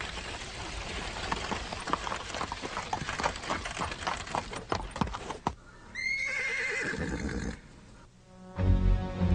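Horse hooves clattering and stamping, then a short horse whinny about six seconds in. Music comes in just before the end.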